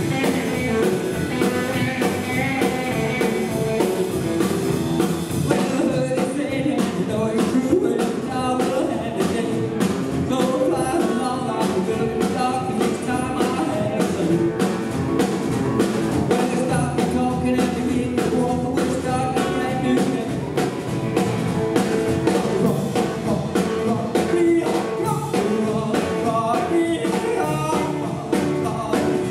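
Live rockabilly band playing: lead vocal over electric guitars, upright double bass and drum kit.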